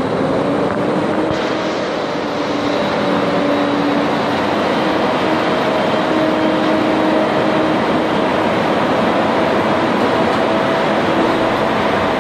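Steady mechanical drone with a wavering low hum, running on without a break.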